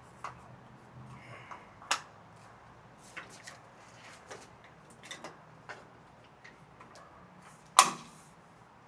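Scattered light clicks and knocks of metal parts and a spanner being handled while an elliptical trainer is assembled, with two sharper, louder knocks about two seconds in and near the end.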